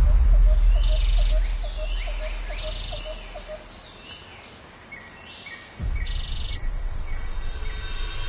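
Nature ambience: insects trilling in short bursts and birds chirping over a low rumble, with a quick repeated call of about three pulses a second in the first few seconds. The low rumble fades out in the middle and comes back about six seconds in.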